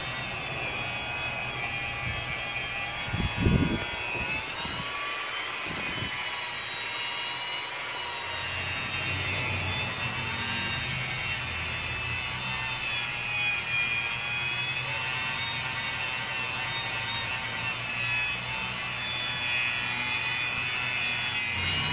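Electric angle grinder fitted with a buffing pad running steadily against a freshly painted scooter body panel, its high whine wavering slightly in pitch as it is pressed on and eased off the paint. A brief low bump about three and a half seconds in is the loudest moment.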